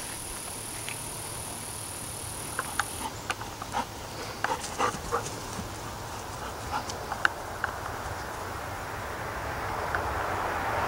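Young Alaskan Malamute at play with a plastic ball toy in her mouth: a run of short, irregular clicks and knocks for several seconds in the middle, over a steady outdoor hiss.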